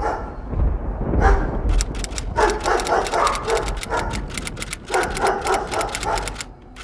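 Airsoft guns firing in rapid full-auto bursts: a fast run of sharp clicks that goes on for several seconds, with some louder, pitched sounds among them.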